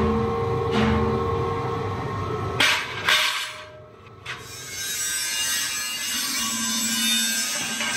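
Steady hum of workshop machinery with a low pulse repeating under it. Two sharp metal clanks come about two and a half and three seconds in. After a short drop, a different steady machine noise takes over.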